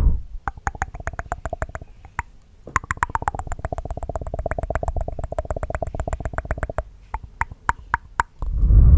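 Close-miked tongue clicks: a handful at first, then a fast run of clicks with a steady pitch lasting about four seconds, then a few sharper single clicks. Near the end comes a loud breath blown onto the microphone.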